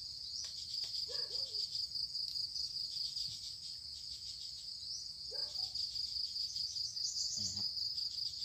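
Crickets chirring steadily in a continuous high-pitched trill, with a few brief faint sounds over it.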